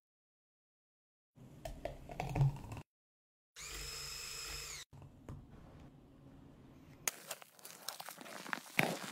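A burst of handling noise with a knock, then a handheld electric milk frother whirring for about a second, its pitch rising as it spins up and falling as it stops. Near the end comes crackling and crinkling of a plastic piping bag squeezing out whipped cream. The sounds are separated by short silent gaps.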